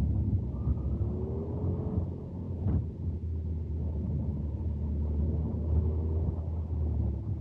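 Onboard sound of an electric RC touring car driving on asphalt: a steady low rumble of tyres and chassis vibration picked up by the car-mounted camera, with a faint motor whine that rises and falls in pitch as the car speeds up and slows. A single short knock comes about two and a half seconds in.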